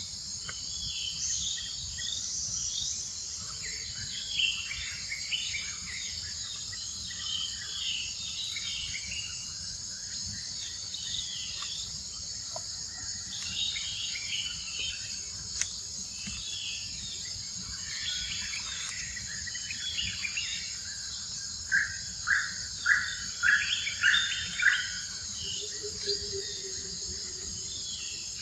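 Steady high-pitched insect drone, with scattered chirping calls over it and a run of about eight short, louder chirps near the end.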